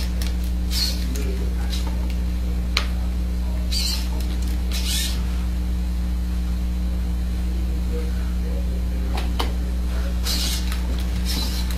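Hobby servos of a delta robot arm buzzing in short bursts as the arm moves checker pieces, with a sharp click about three seconds in, over a steady low electrical hum.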